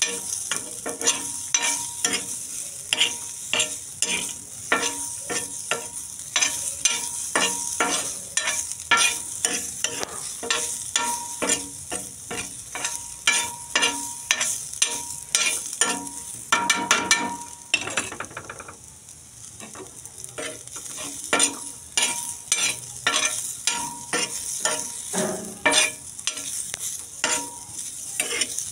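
Spatula scraping and stirring diced potatoes and vegetables in a wok, in quick repeated strokes over a steady sizzle of hot oil. The stirring pauses for about two seconds some two-thirds of the way in, leaving only the sizzle.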